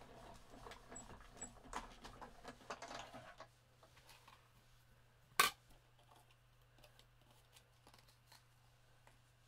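Craft tools and card being handled while a fox die is cut out: light rustles and small clicks for about three seconds, then one sharp clack about five seconds in.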